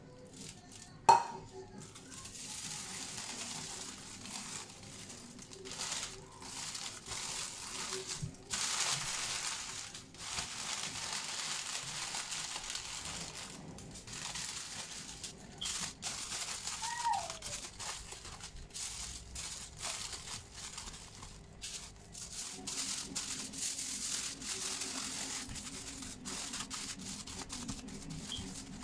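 Parchment paper and aluminium foil crinkling and rustling as they are folded and pressed around a food parcel, with a sharp knock about a second in.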